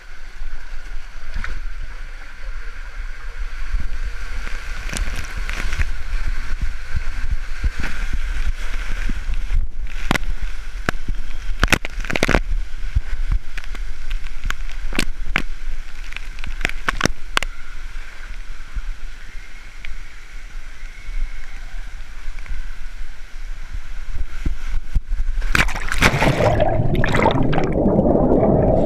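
Water rushing down a water slide as a rider slides through the tube, with scattered sharp knocks against the slide walls partway down. About 26 seconds in, the plunge into the pool brings a loud splash that turns to churning and bubbling underwater.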